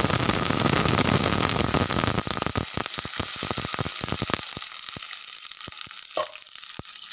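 Water poured into a kadhai of hot oil tempered with mustard seeds and cumin: a loud hissing sizzle that dies away over a couple of seconds into scattered crackling pops, growing sparser as the oil and water settle.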